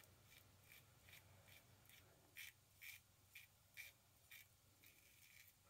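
Faint scratchy strokes of an Occam's Razor safety razor across lathered stubble, about two a second, the clearest five in the middle.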